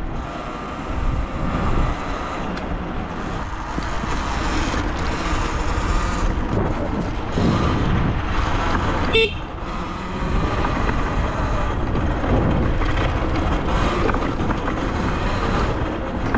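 Talaria Sting electric dirt bike being ridden along a dirt trail: a steady rush of wind and tyre noise, with the electric motor's whine rising and falling in pitch now and then.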